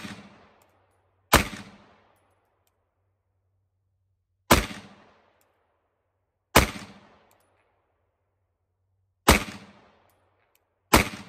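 Five single shots from a 9mm pistol, fired slowly one at a time about two to three seconds apart, each followed by a short echo.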